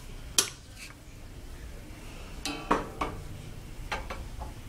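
A few sharp knocks and clicks of hard objects being handled and set down, one with a short clinking ring about two and a half seconds in.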